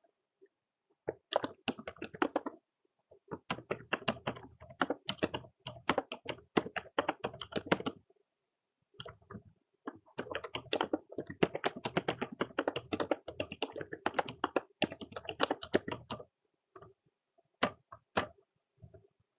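Typing on a computer keyboard: runs of rapid keystrokes broken by short pauses, thinning to a few scattered key clicks near the end.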